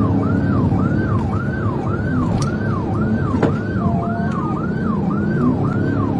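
Police car siren in fast yelp mode, sweeping up and down about twice a second, over the cruiser's engine and road noise during a pursuit. A single sharp click comes about three and a half seconds in.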